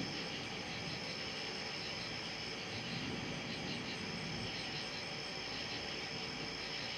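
Night insects such as crickets chirping and trilling steadily in several layered high-pitched tones, some with a fast even pulse.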